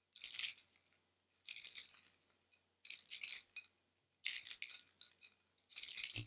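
A rattling, shaken sound repeated five times at an even pace, about one shake every second and a half, each a hissy, high-pitched rush that fades quickly.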